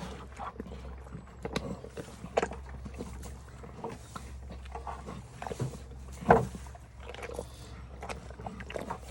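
Irregular knocks and clatters, with one sharp bang about six seconds in, over a steady low hum.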